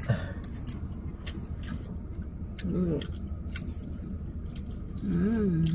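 Chewing and small mouth clicks of people eating fries and burgers, over a steady low hum from the car, which is running for its air conditioning. Two short hummed "mmm" sounds, about three seconds in and near the end.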